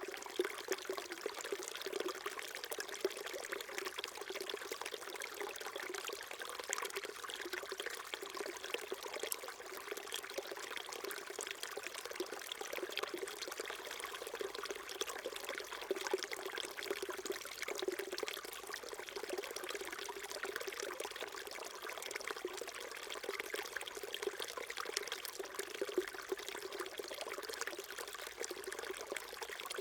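Small mountain stream babbling and trickling over stones, a steady, even flow of water with fine splashing.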